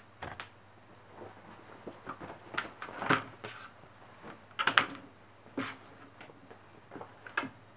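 Fabric and a denim jacket being handled on a cutting mat: rustling with a string of short, irregular clicks and knocks.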